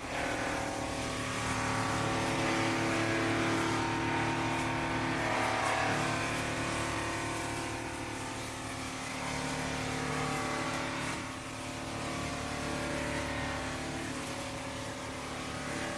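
A motor vehicle's engine running steadily, its pitch briefly rising and falling about five seconds in.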